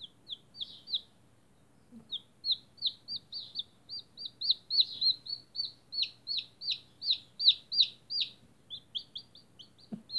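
Day-old chick peeping: a long run of short, high peeps that drop in pitch, about three or four a second, with a break of about a second near the start.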